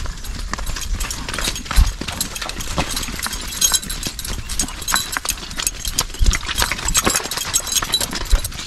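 A mule's hooves clip-clopping at a walk on a dirt track, with irregular sharp clicks and knocks throughout.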